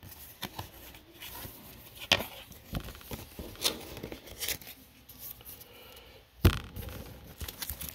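Light clicks and rustles of trading cards being handled and laid down on a table, with one louder thump about six and a half seconds in.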